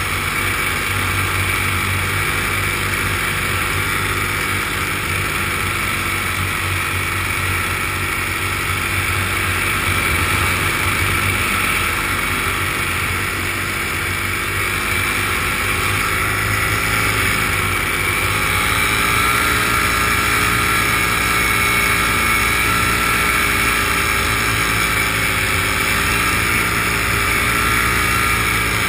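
Engine and propeller of the small aircraft carrying the camera, running steadily in flight; the pitch dips slightly and comes back up about 18 seconds in.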